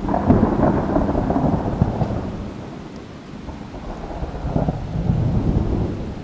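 Thunder rumbling, with rain falling. One roll breaks in suddenly and fades over about three seconds, and a second, softer roll comes about four and a half seconds in.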